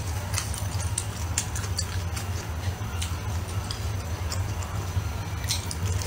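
Close-miked chewing of a mouthful of food, with irregular small wet mouth clicks over a steady low hum.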